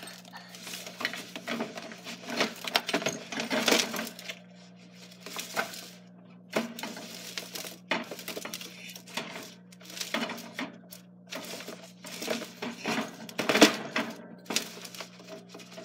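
Irregular clinking and rattling of a wire gerbil cage and its plastic fittings as a hand reaches in and rummages after the gerbil, over a faint steady hum.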